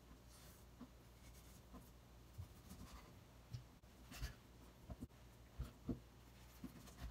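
Faint, irregular taps and light scraping of a kitchen knife meeting a plastic cutting board as raw salmon is sliced into thin sticks, a little stronger about four and six seconds in.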